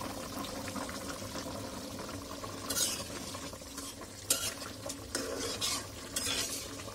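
A spoon stirring thick pigeon curry in a metal karahi, scraping and clinking against the pan several times in the second half, over the curry's steady low simmer.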